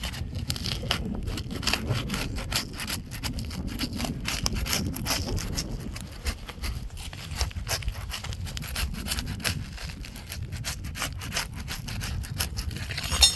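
An asphalt roof shingle being pried and worked loose, with steady scraping and rubbing and a dense irregular crackling as the brittle shingle cracks and tears; one sharp crack near the end is the loudest sound. The shingle is breaking apart as it is lifted, the brittleness that a repairability test looks for.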